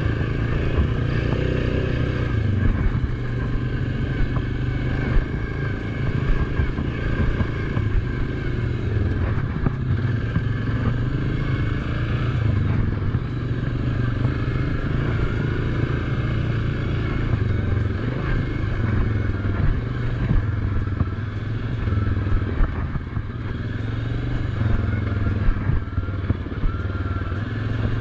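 A Suzuki KingQuad ATV's single-cylinder engine running along at trail speed, the throttle rising and easing a little. Small knocks and rattles come from the machine bouncing over the dirt track.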